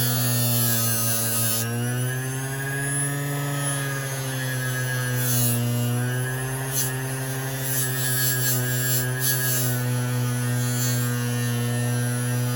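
Motor-driven fiber wheel running with a steady hum whose pitch sags and recovers as a steel pocketknife blade is pressed against it to clean off patina. Short hissing scrapes from the blade on the wheel come and go through the middle.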